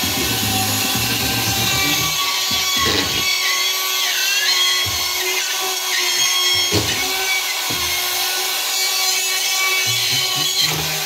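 Cordless drill driving screws up into a drywall ceiling panel, its motor running in several separate runs with short pauses between screws.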